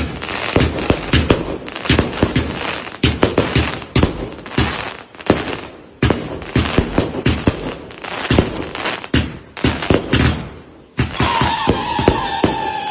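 Consumer fireworks going off in quick succession: dense runs of sharp bangs and crackles from shots and bursts, with brief lulls between them. Near the end, a held whistle falling slightly in pitch sounds through the bangs.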